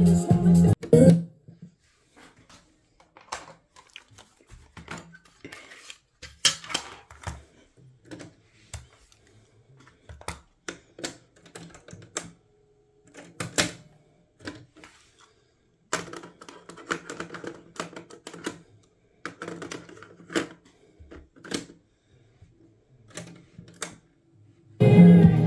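Switches and cassette-deck controls of a Panasonic RX-C45LE boombox clicking and clunking: a scattered run of sharp clicks and knocks with short pauses between. Music from the boombox's speakers cuts off about a second in and starts again near the end.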